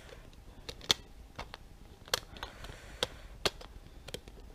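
Irregular small clicks and taps of hard plastic as a clear plastic window insert is handled and pressed into the hard plastic cab shell of a WPL C24 RC pickup body, the loudest click about a second in.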